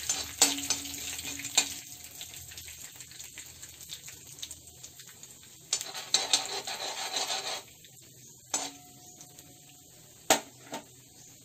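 Tempering spices (mustard seeds, cumin, chana dal) sizzling in a little hot oil in a kadai while a spoon stirs them. The sizzle fades over the first couple of seconds, flares up again for about two seconds in the middle, and sharp clicks of the spoon against the pan come now and then, the loudest near the end.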